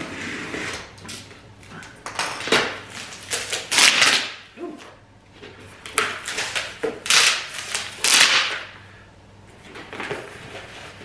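Box cutter slitting the packing tape on a cardboard box, then the cardboard flaps being pulled open and folded back: a series of rough scraping, tearing and rustling bursts with short pauses between them.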